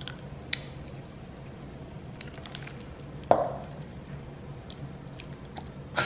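Light clicks and taps of handling at a kitchen counter, with one sharp knock a little past the middle like a glass cup being set down on the countertop, and another knock near the end. A low steady hum runs underneath.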